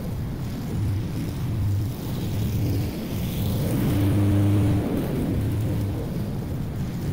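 Honda walk-behind lawn mower's single-cylinder four-stroke engine running steadily while cutting grass, growing louder about four seconds in as the mower passes close.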